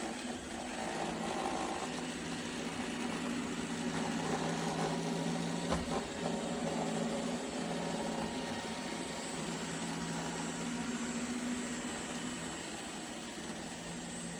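Roomba robot vacuum running, a steady hum of its suction and brush motors, with a single knock about six seconds in.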